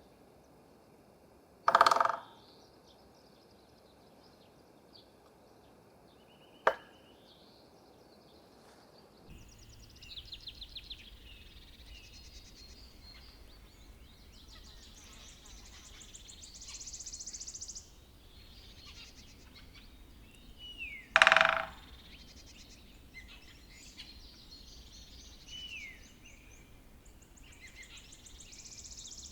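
Great spotted woodpecker hammering a dry trunk in two short, loud, ringing bursts, about two seconds in and again about twenty-one seconds in, with a single sharp knock near seven seconds. From about nine seconds on, other birds sing and call in the background with rapid high trills and short falling whistles.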